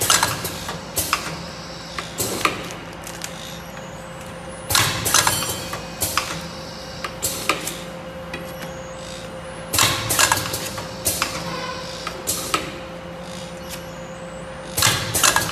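Rotary cup foil sealing machine running through its cycle: a cluster of sharp clacks and short hisses about every five seconds as the table indexes and the head seals a cup, with single clicks between and a steady hum underneath.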